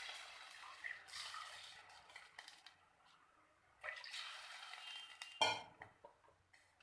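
Rice water being added to a pan of hot tempered spices: a faint hiss that dies away, with light clinks of a vessel and spoon against the pan and one sharper clink about five and a half seconds in.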